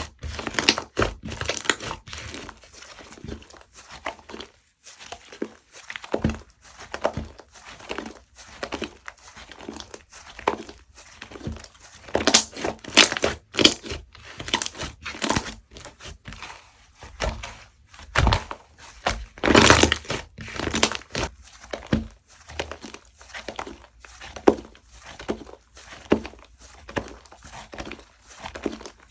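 Clay-mixed slime being squished and stretched by hand, making many short, irregular pops and clicks, some in quick clusters.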